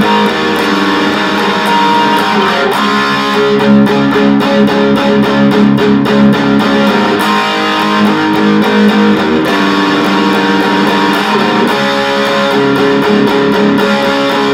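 Electric guitar tuned down a half step to E flat, strumming the chorus chords (A, then D) in quick repeated strokes, with the chord changing every few seconds.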